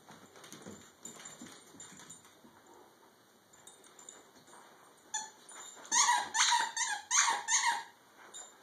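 Dogs playing: faint scuffling at first, then from about five seconds in a quick run of about six short, high-pitched squeaks.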